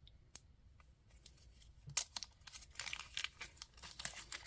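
Small plastic bag crinkling and rustling as it is handled and opened, with a few light clicks in the first half and denser crinkling from about halfway.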